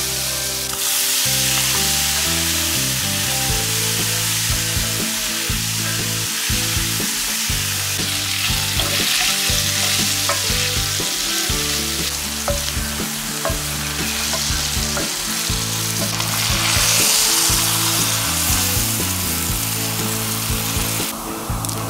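Oil and chili paste sizzling in an enamelled pan as whole spices and then quail eggs fry, stirred with a wooden spatula that gives a few light taps. Near the end beer is poured in and the sizzle drops away suddenly.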